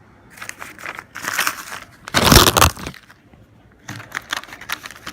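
Packaging being handled and torn open: crinkling and rustling in patches, a loud crunch a little after two seconds in, then small crackles.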